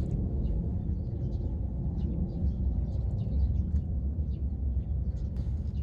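Steady low rumble, with faint, short high chirps scattered through it.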